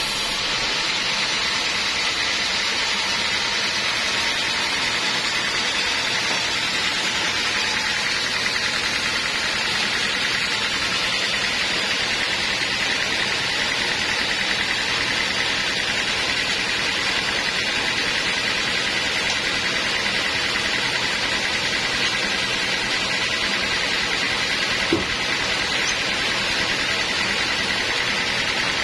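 Sawmill saw running steadily as teak logs are cut into planks: a constant, hissing machine noise that does not rise or fall, with one short knock near the end.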